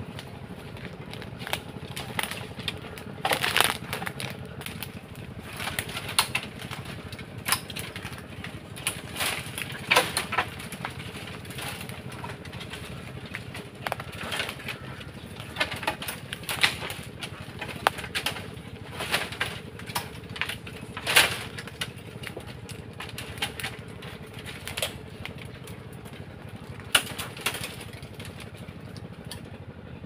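Dry bamboo stems and brush rustling and cracking in irregular bursts as someone pushes through and pulls at a tangled thicket.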